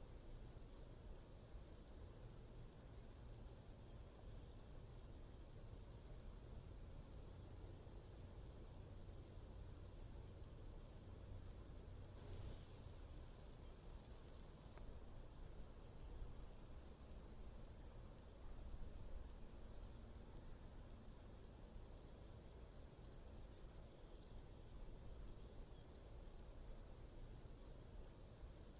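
Faint chorus of crickets: a steady high trill with an evenly pulsing chirp beneath it, over a low background rumble.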